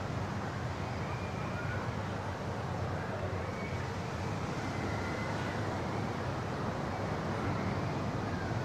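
Steady seaside ambience: wind rumbling on the microphone under an even hiss of distant surf, with no distinct event.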